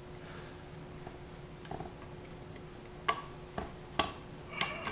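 Needle-nose pliers working against the metal action of a Daisy 499B BB gun to press in the safety's retaining tab: four small sharp metallic clicks in the last two seconds, over a faint steady hum.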